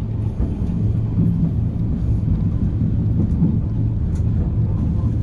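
Steady low rumble of a vehicle driving on a snow-covered road.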